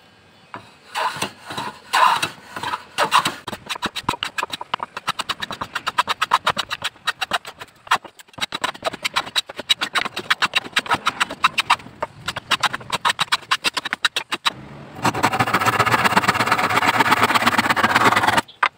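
Hand plane shaving a hardwood board in rapid repeated strokes. About fifteen seconds in it gives way to a hand saw cutting across the wood in fast continuous strokes, which stops suddenly near the end.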